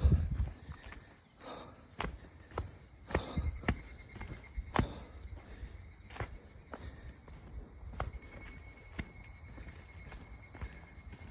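Steady high-pitched drone of an insect chorus, with a person's footsteps on the trail at irregular intervals. The heaviest step lands right at the start.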